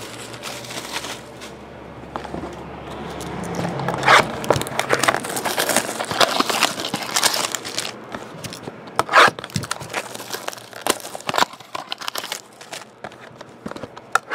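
Plastic wrap and foil trading-card packs crinkling and rustling as packs are handled and pulled from a cardboard card box, with two sharp knocks at about four and nine seconds in.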